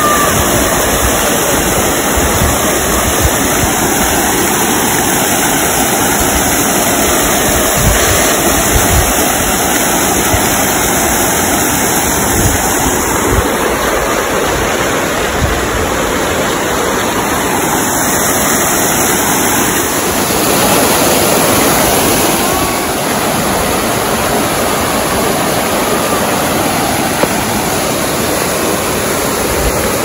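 Park fountain's many water jets spraying and splashing into a wide pool: a loud, steady rush of falling water.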